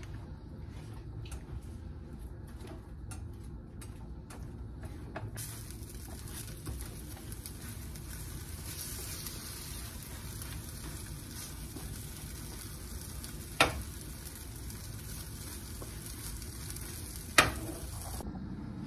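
Scrambled eggs with bacon and cheese frying in a nonstick pan, stirred and scraped with a silicone spatula. A steady sizzle comes in about five seconds in, and two sharp knocks sound near the end, about four seconds apart.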